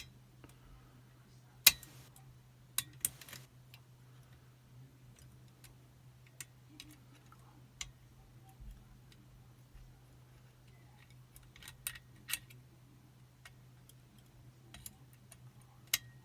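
Scattered small metallic clicks and ticks of a picking wire and tensioning tool working the levers inside a Chubb Detector five-lever lock. A few sharper clicks stand out, about two and three seconds in, around twelve seconds and near the end.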